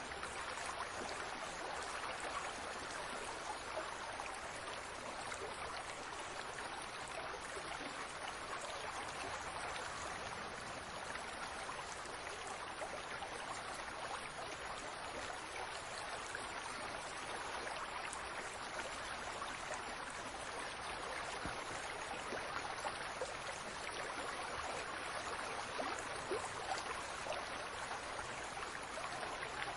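Fountain water splashing and trickling in a steady, even rush, with fine spatters of drops throughout.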